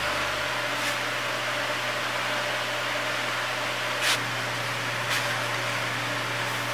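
Steady fan-like whir and low hum of running shop equipment, with three light metallic clicks: about a second in, about four seconds in (the loudest), and about five seconds in.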